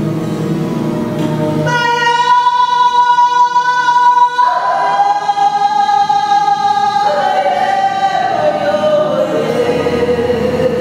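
A woman singing long held notes in an improvisation: about two seconds in she enters on a high note, slides down to a lower held note, then steps down again to a lower held note. She sings over a low instrumental drone.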